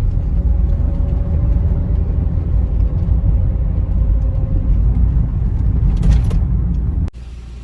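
Steady low rumble of a car on the move, road and engine noise. It drops abruptly to a quieter rumble about seven seconds in.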